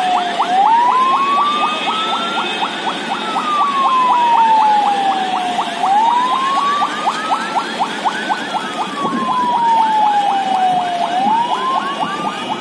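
Siren wailing, its pitch slowly rising and falling about every five seconds, with a second, faster warbling siren pattern of about five short sweeps a second alongside it. A steady rushing noise runs beneath both.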